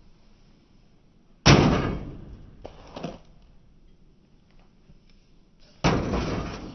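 Two loud bangs about four seconds apart, each with a short rattling tail, and a softer knock between them.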